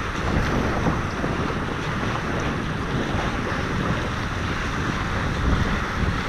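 Wind buffeting the microphone over a steady rush of water past the hulls of a Tornado racing catamaran under sail.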